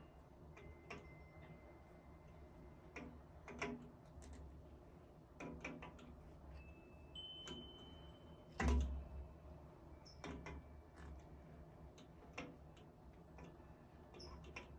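Scattered small clicks and metallic knocks of hand tools and metal shower-valve parts being handled, with a few short ringing tones and one louder knock about nine seconds in.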